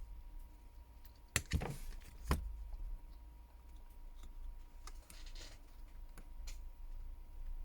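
Small phone parts and tools being handled during phone reassembly: a few sharp clicks and short scrapes, with the two loudest clicks about a second and a half and two and a half seconds in.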